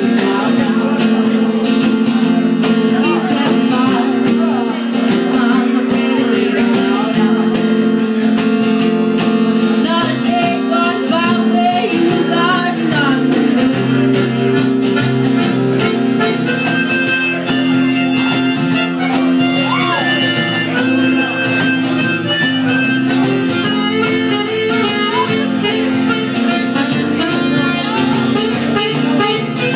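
Live band playing a tune: a squeezebox sounds long held reedy notes over strummed acoustic guitar and electric guitar.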